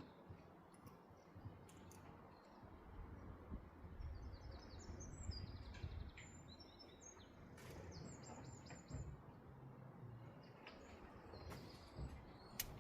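Faint small songbird chirping in quick runs of short, high notes in the middle of the clip, over a low outdoor rumble.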